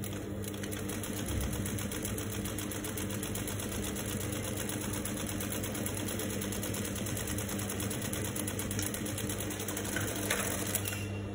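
Juki industrial sewing machine stitching a seam through cotton fabric, a fast, even clatter of the needle over a steady motor hum. A couple of sharper clicks come about ten seconds in as the fabric is handled at the machine.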